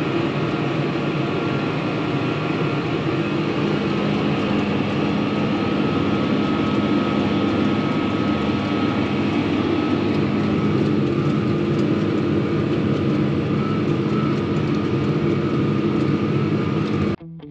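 Tractor engine running steadily at an even pitch while pulling a soil finisher through the field. Guitar music cuts in suddenly near the end.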